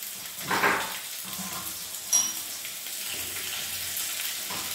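Hot oil sizzling steadily in a small pan as green chillies are added to a tempering of mustard seeds, curry leaves and ginger. A single sharp clink comes about two seconds in.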